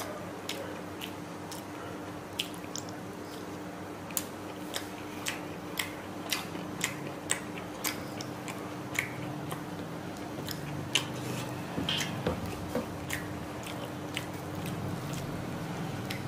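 Close-up eating sounds: chewing fried rice and chicken curry with sharp, wet mouth clicks, about two a second at their busiest in the middle and sparser toward the end. Under them, fingers squish and mix rice and curry on the plate.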